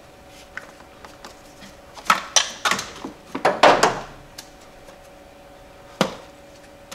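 Clicks and light rattles of a throttle cable and its plastic and metal fittings being handled and routed across the engine bay, with a cluster of sharp clicks about two to four seconds in and a single sharp click about six seconds in.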